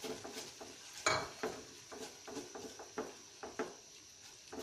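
A spatula knocking and scraping against a non-stick wok as a sauce of onions and chopped coriander is stirred. The strokes are short and irregular, several a second, with the loudest about a second in, over a faint sizzle.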